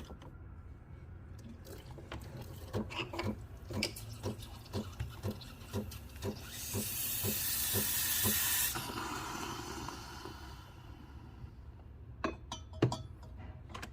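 Breville Barista Pro steam wand being purged: the machine ticks rhythmically, about two or three ticks a second, then a loud hiss of steam bursts out about six seconds in and tapers off a few seconds later. A few clicks come near the end.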